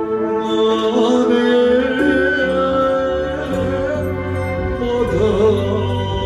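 A man singing into a microphone over an electronic keyboard accompaniment, both amplified through PA speakers.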